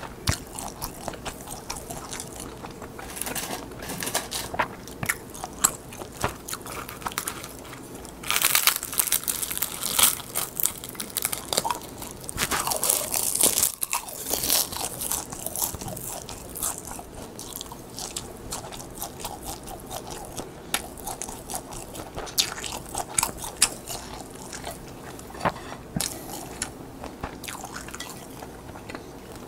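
Close-miked eating of crisp seasoned laver (gim) sheets: brittle crackling bites and chewing, with a busier, louder run of crunching in the middle.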